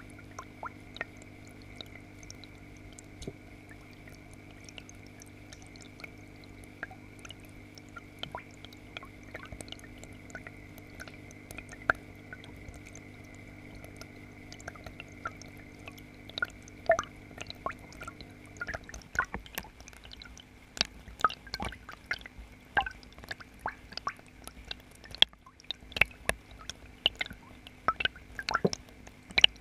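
Underwater sound in an aquarium tank: the submerged filter pump hums steadily, with scattered clicks and drips of water. The hum stops about two-thirds of the way through, and the clicks then come thicker and louder.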